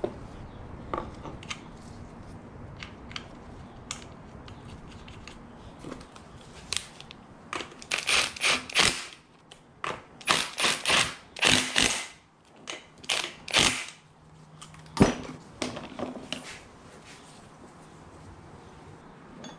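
Hand handling of a removed brake booster, master cylinder and tools on a metal tool cart: scattered clicks and knocks, a run of short loud rasping bursts from about eight to fourteen seconds in, and a sharp click about fifteen seconds in.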